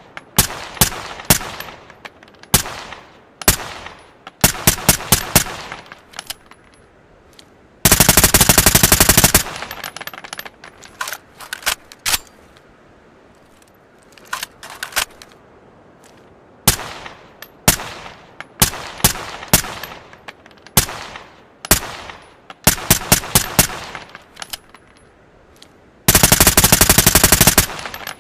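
Suppressed ARN-180 assault rifle firing single shots and short bursts, with two long full-auto bursts of about a second and a half each, one about 8 seconds in and one near the end. Faint high metallic tinkles follow some bursts.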